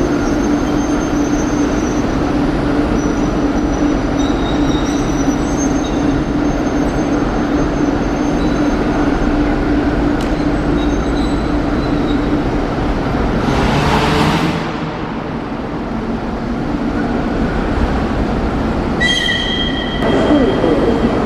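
ChME3 diesel shunting locomotive's six-cylinder engine running steadily with a strong steady hum. About two-thirds of the way through comes a short loud hiss of air, and near the end a high squeal.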